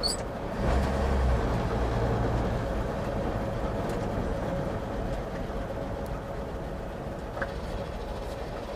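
1949 GMC pickup's original 228 cubic-inch inline-six running under way, heard from inside the cab along with road noise. The sound is steady, growing gradually quieter over the second half.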